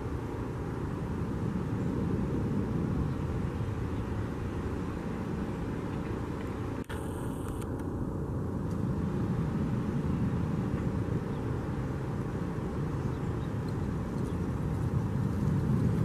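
Steady low rumble of outdoor background noise, with a brief dropout about seven seconds in; no bird calls stand out.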